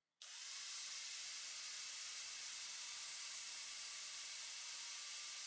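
Angle grinder with a cut-off disc running steadily, cutting through a tape-wrapped, fabric-covered stainless braided -6 AN hose; it starts abruptly about a quarter second in as an even, hissing whine.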